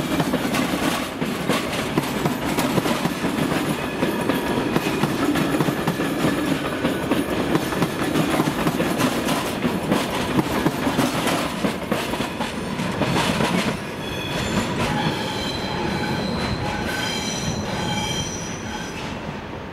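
Belgian SNCB passenger coaches rolling past on curved track, their wheels clattering with rapid clicks over the rail joints and points. From about two-thirds of the way through, the wheels squeal with several high, steady tones as the train takes the curve. The sound then fades near the end.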